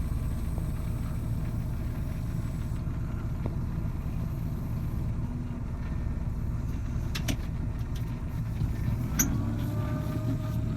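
Engine of a heavy farm machine running steadily with a low, even drone, with a couple of brief clicks about two-thirds of the way through.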